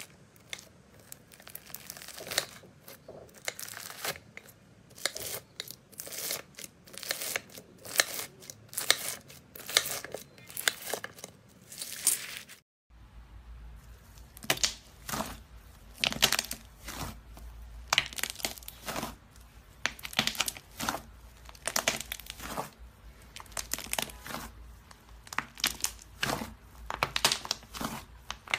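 Crunchy slime packed with small red beads being sliced with a blade, a dense run of sharp crackles and clicks. About halfway through it changes to hands pressing and squeezing soft pink slime in a tub, with more irregular crackling and clicking over a low steady hum.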